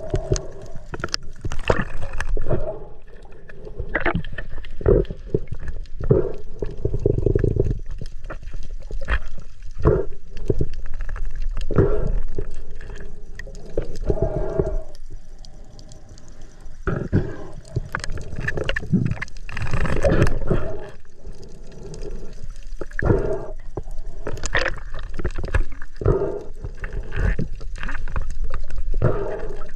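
Water gurgling and bubbling around a submerged camera during a spearfishing dive, in irregular surges with sharp knocks and splashes.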